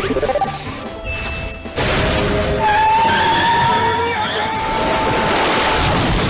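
Cartoon soundtrack of music and slapstick sound effects: a sudden loud crash-like rush of noise about two seconds in that carries on, with steady held tones over it.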